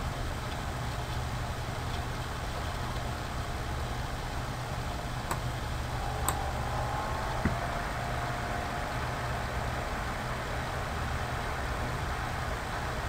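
Steady low hum with hiss, with two faint clicks about five and six seconds in and a sharper click about seven and a half seconds in.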